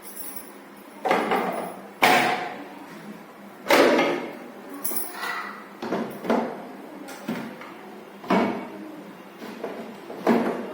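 A series of knocks, bumps and sliding clunks, about eight in ten seconds, each sudden and quickly fading, as refrigerator drawers, shelves and doors are handled and put in place.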